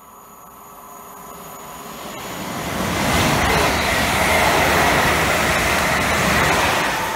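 LNWR Class 350 Desiro electric multiple unit passing close by. Its rushing wheel-on-rail and running noise builds over about three seconds to a steady loud level, with a faint high whine on top, then begins to ease near the end.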